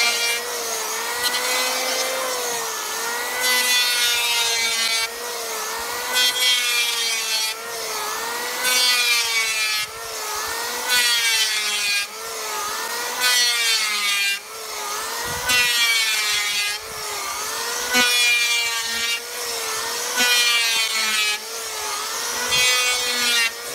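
Handheld electric power planer running and pushed in repeated passes over the wooden frame of a louvered shutter door, about every two and a half seconds. The motor whine dips under load on each pass while the blades shave the wood with a loud hiss.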